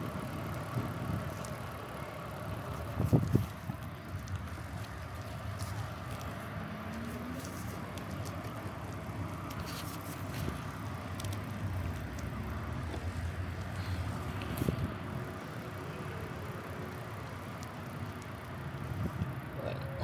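Riding a bicycle: steady rolling and wind noise, with scattered light clicks and a brief louder thump about three seconds in.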